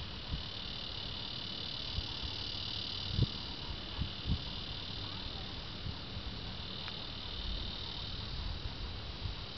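Steady high-pitched chorus of insects, cricket-like, with a few soft low bumps about three and four seconds in.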